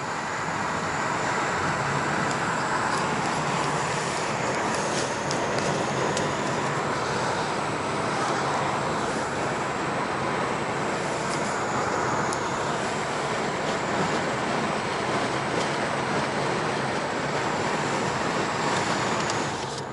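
Ford S-Max 1.8 TDCi diesel cruising on a motorway: a steady rush of engine and road noise. A thin high whine rises and falls slightly throughout, which the owner takes for the turbo whistling.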